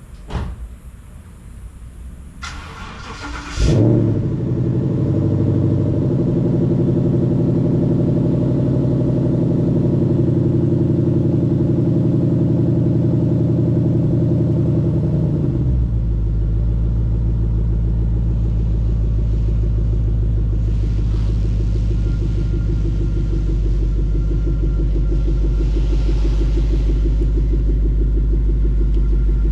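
Ford Mustang GT's 5.0-litre V8 cranked by the starter for about a second, catching with a loud flare, then idling steadily. About halfway through, the idle drops to a deeper, lower note as it settles.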